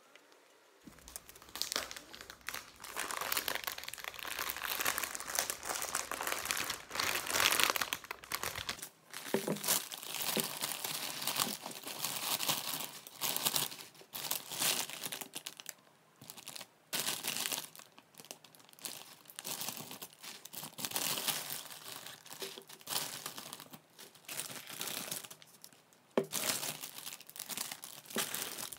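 Plastic bag of fresh spinach crinkling and rustling in irregular bursts as it is handled and the leaves are shaken out into a plastic colander.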